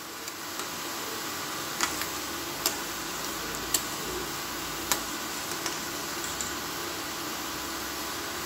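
Perforated metal ladle stirring soup in a metal pan, clicking sharply against the pan about once a second, over a steady hiss.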